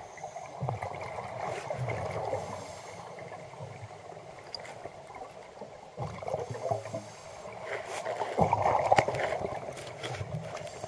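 Muffled rushing and gurgling of water recorded by a camera held underwater, swelling louder about eight seconds in, with a few scattered clicks.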